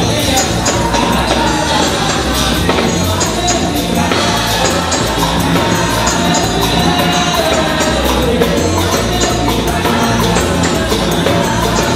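Loud, upbeat music with a steady, jingling percussion beat and singing.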